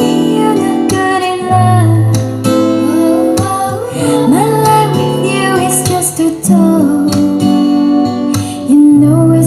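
Light vocal music, a woman singing over guitar, played loud through a home-built speaker box set-up as a sound test.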